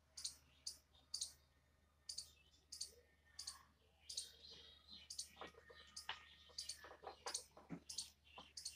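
Faint, irregular crackling pops, about one or two a second, from soldering paste flux as the hot soldering iron holds solder on a twisted copper-wire joint.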